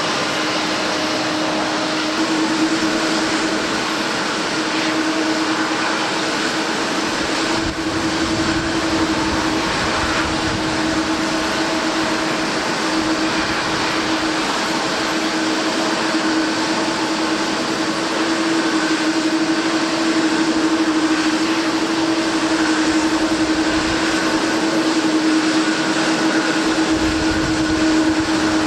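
Airliner jet engines running with a steady, unchanging whine and no rise in pitch, over a rough low rumble of wind on the microphone.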